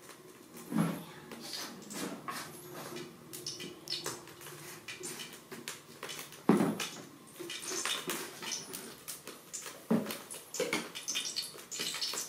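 Scattered clinks and knocks of seasoning jars, a spoon and a wok being handled on a tabletop, with louder knocks about a second in, at six and a half seconds and at ten seconds.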